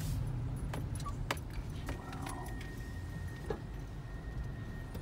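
Inside a car's cabin while driving: a steady low engine and road rumble, with a few light clicks and jingling rattles and a faint steady high tone from about two seconds in.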